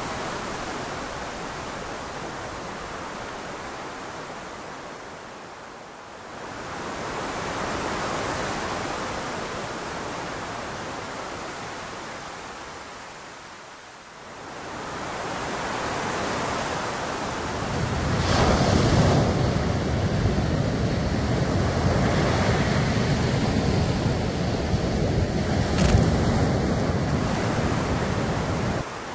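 Ocean surf on a beach, a steady wash that swells and eases every several seconds. Wind on the microphone adds a louder, rumbling layer in the second half.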